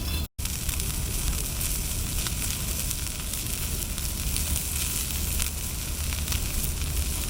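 Food sizzling in a frying pan over a wood fire: a steady hiss dotted with many small pops and crackles. The sound drops out for an instant right at the start.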